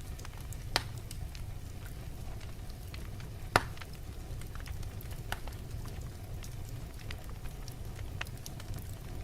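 Wood fire crackling in a fireplace: a steady low rumble under scattered small crackles, with two sharper pops, one about a second in and a louder one about three and a half seconds in.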